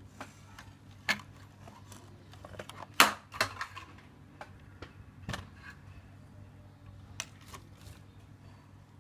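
Irregular sharp clicks and knocks, a dozen or so, with the loudest cluster about three seconds in, over a faint steady low hum.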